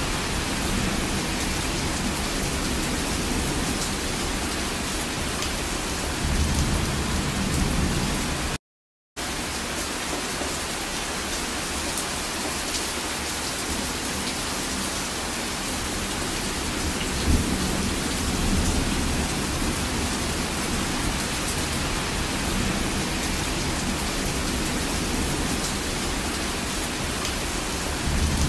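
Heavy rain pouring steadily, with low thunder rumbling twice, about six seconds in and again past the middle. The audio drops to silence for half a second about a third of the way through.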